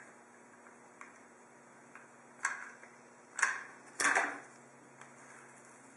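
Hot glue gun being worked along a foam hinge line: a few short, sharp clicks, the loudest about four seconds in.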